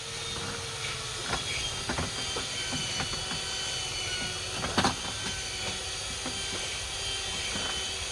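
Electric motor of a wood lathe running steadily with a whine, with scattered light knocks and one louder knock about five seconds in.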